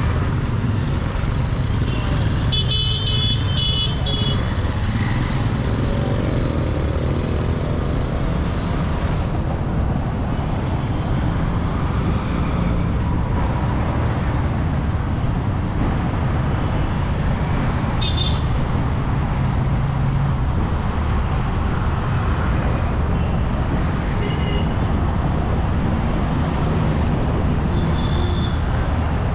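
Road traffic: a steady rumble of engines and tyres, with a vehicle horn blaring about three seconds in and a few shorter honks later.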